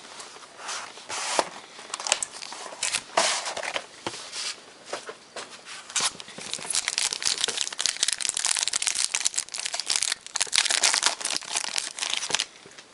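Plastic wrapping being torn and crinkled as a sealed trading card box is opened, in irregular crackling bursts that become denser and near-continuous after about six seconds, then stop just before the end.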